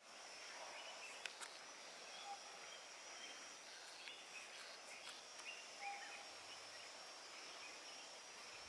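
Faint wild outdoor ambience: scattered short bird chirps and calls, with a short low whistled note twice, over a steady thin high hiss, and two sharp clicks about a second in.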